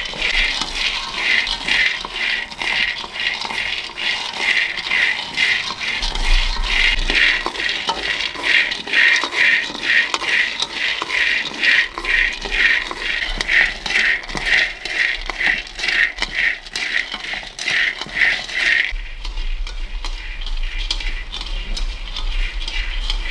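Rhythmic scraping and rattling of a utensil stirring in a pan, about two to three strokes a second. The strokes give way to a softer, less even scraping about nineteen seconds in.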